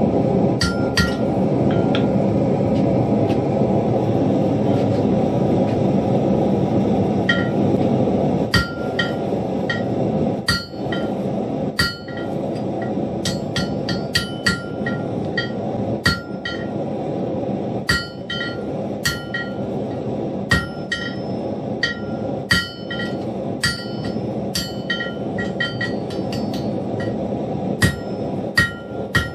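Blacksmith's hammer striking steel on an anvil, each blow leaving a bright metallic ring; the ringing comes from an anvil that is partly unmounted. A few blows at first, then a steady run of strikes about one or two a second from about seven seconds in, over a steady rushing noise.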